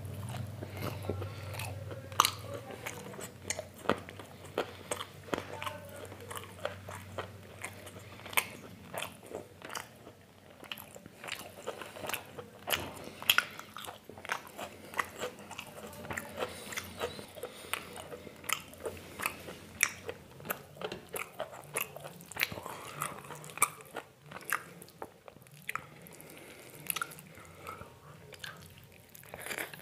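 A person eating close to the microphone: wet chewing broken by frequent sharp crunches and mouth clicks, several a second.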